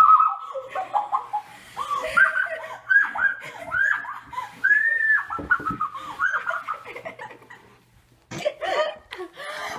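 Girls laughing hard in high-pitched peals, with a long pause for breath near the end.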